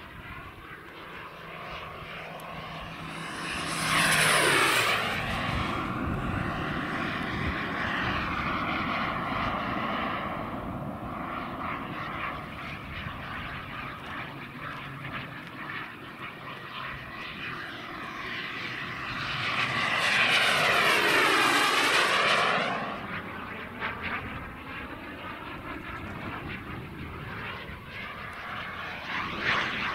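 KingTech 140 turbine of a CARF Ultra Flash RC sports jet running in flight, a steady whine that swells into two loud fly-by passes, one about four seconds in and a longer one around twenty seconds in, with the jet coming round again near the end.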